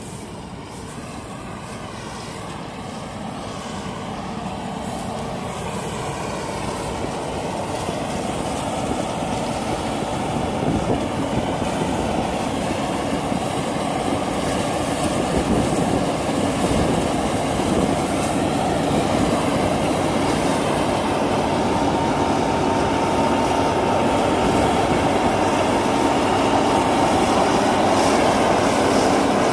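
New Holland 8080 MS combine harvester running as it harvests rice, its engine and threshing machinery droning and growing steadily louder as it approaches. A steady whine rises into the sound over the second half.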